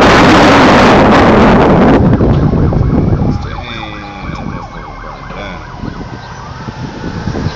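Wind buffeting the microphone for about the first two seconds, then an emergency-vehicle siren wailing up and down over street noise.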